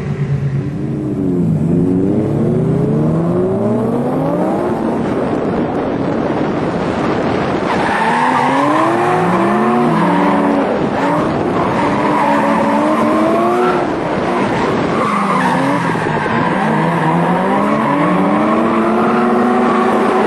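Car engine revving up and down again and again as the car drifts, with tyres skidding. About eight seconds in the sound becomes louder and brighter, heard close up from the drifting car.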